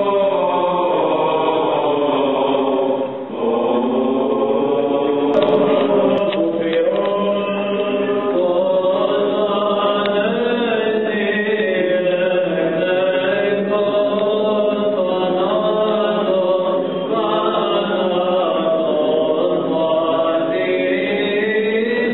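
Voices singing Greek Orthodox Byzantine chant, a slow, continuous melody that glides up and down without break. A couple of faint clicks come about five seconds in.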